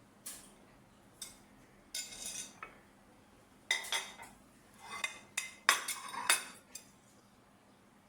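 A metal spoon clinking and scraping against glass and dishes as syrup is spooned into a bottle: a string of sharp clinks with a short ring, a few scattered at first, then thick and fast in the second half.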